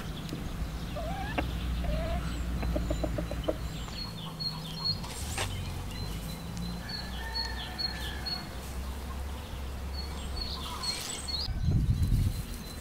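Chickens clucking, with a quick run of clucks a few seconds in and small birds chirping high over a steady low rumble; a louder burst of noise comes near the end.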